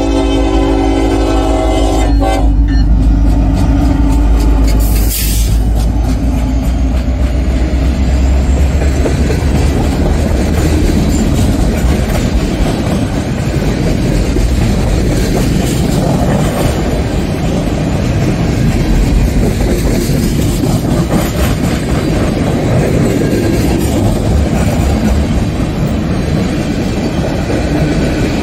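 Freight locomotive's multi-chime air horn sounding and cutting off about two seconds in, then the diesel locomotives rumbling past. This is followed by a long string of loaded tank cars rolling by, steel wheels clicking and clattering over the rail joints.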